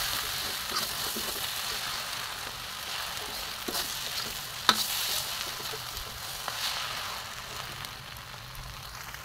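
Noodles and vegetables sizzling in a hot wok as they are stir-fried with a perforated metal spatula, with a few sharp clinks of metal on the pan, the loudest about halfway through. The sizzle eases a little near the end.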